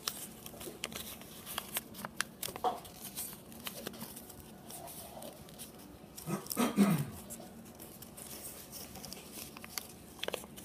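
Yellow origami paper crinkling and crackling in the hands as it is folded and creased. About two-thirds through, a short sound falls in pitch, the loudest thing heard.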